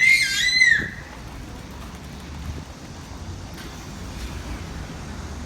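A high-pitched cry about a second long, wavering and then falling away, right at the start, followed by a steady low rumble of background noise.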